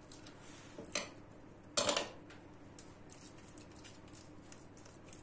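A metal spoon clinks once about a second in, then clatters more loudly just under two seconds in, followed by faint scraping as it spreads filling over pizza dough on a baking tray.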